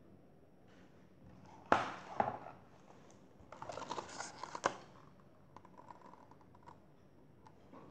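A picture book handled close to the microphone: a sharp knock a little under two seconds in, then the pages rustling for about a second and ending in a sharp click, with a few faint taps afterwards.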